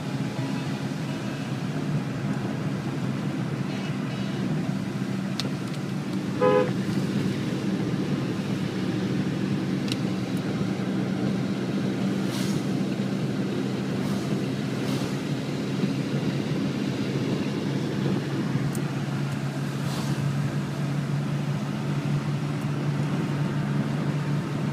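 Steady engine and tyre drone heard from inside a car's cabin on a wet road. A vehicle horn toots briefly about six and a half seconds in, and a truck swishes past close alongside about twelve seconds in.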